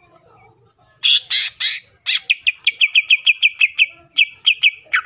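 Male greater green leafbird (cucak ijo) singing: three loud harsh, raspy calls about a second in, then a fast run of short, sharp high notes at about six a second, ending near the end in a falling note.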